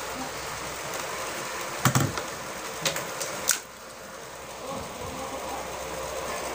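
A few sharp plastic clicks and snaps as an angle grinder's small removed power switch is handled and pried apart, the loudest about two seconds in. A steady hum runs underneath.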